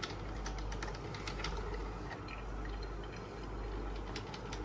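A 3-in-1 breakfast machine's drip coffee maker brewing tea: hot water dripping into the glass carafe, with irregular sharp clicks and pops over a steady hiss.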